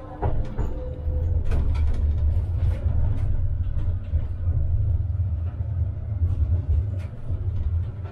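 Tram running along the track: a loud, steady low rumble that starts suddenly and carries on, with scattered clicks and knocks over it.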